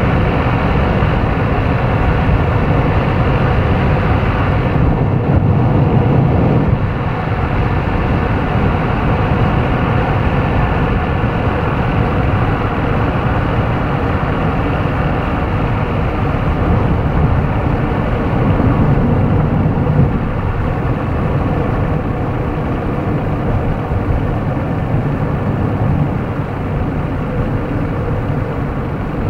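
Toyota Mark X 250S cruising on an expressway: steady tyre, road and engine noise, dipping slightly about seven seconds in.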